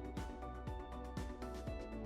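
Background music with a steady beat: a kick drum about twice a second under held chords and cymbal washes.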